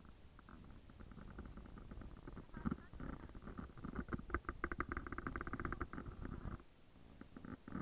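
A bird's rapid chattering call, a fast run of short buzzy pulses that grows denser and then stops abruptly, over a low rumble.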